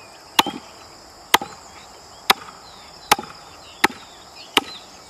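Axe chopping through a rack of lamb ribs, bone and meat, into a wooden chopping stump: six sharp chops, a little under a second apart.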